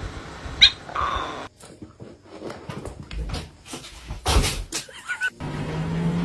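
A pet dog or cat gives a short high cry, followed by a run of knocks and bumps. About a second before the end a steady low hum takes over.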